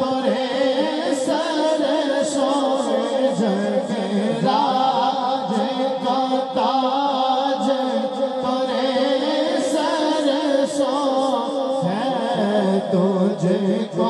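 A male qari singing a naat, an Urdu devotional poem, amplified through a microphone. He draws out long wordless melismatic phrases with quick wavering ornaments over a steady held note beneath.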